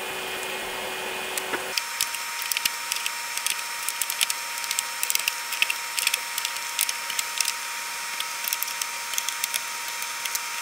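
Plastic control knobs being pushed back onto a mixing desk's potentiometer shafts: a run of light, irregular clicks and taps starting about two seconds in, over a faint steady whine.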